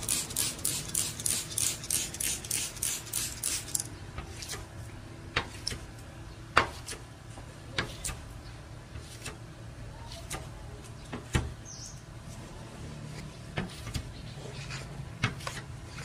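Wet sandpaper scrubbed back and forth by hand on car windshield glass, about four strokes a second, stopping about four seconds in. After that there are only scattered small ticks and squeaks from the wet glass.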